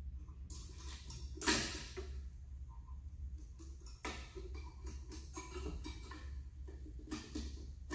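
Hand work on a push mower's engine: small clicks, knocks and rattles of metal parts as the new carburetor and its throttle and governor linkage rods are fitted. The loudest knock is about one and a half seconds in, with more near the middle and near the end, over a steady low hum.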